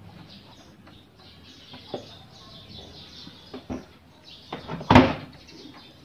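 Faint bird chirping in the background, with a few light clicks and one louder, sharp knock about five seconds in.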